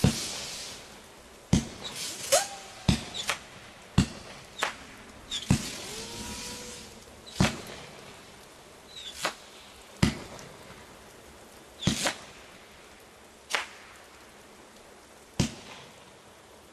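Shogun 19-shot hummer cake firing: sharp launch reports at uneven intervals of one to two seconds, several followed by a short buzzing hum that bends in pitch as the spinning hummer shell flies.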